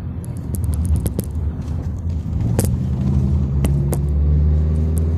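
Car engine and road rumble heard from inside a moving taxi, with a steady low engine hum that grows louder from about halfway through. A few short sharp clicks sound over it.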